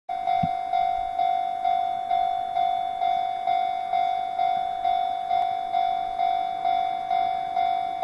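Japanese railway level-crossing warning bell ringing, an even clang repeating about twice a second, sounding because a train is approaching the crossing.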